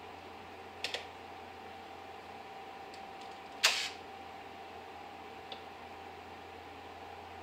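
A few sharp plastic clicks from a hand working the model railroad's control board: a quick double click near the start, a louder click about three and a half seconds in, and a faint tick later. A steady faint hum runs underneath.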